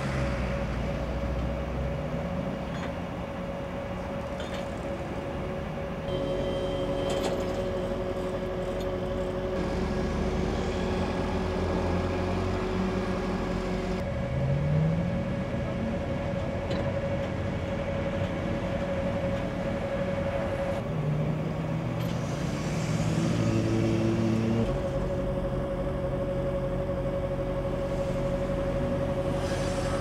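Motorway traffic and heavy diesel truck engines running, with a steady hum throughout and a few short engine revs. The sound changes abruptly several times.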